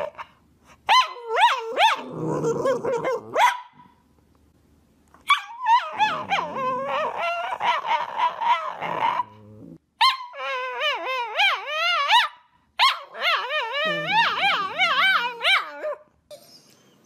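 Dogs 'talking' in long, high-pitched whining howls whose pitch keeps wavering up and down. They come in four separate bouts broken by short silences.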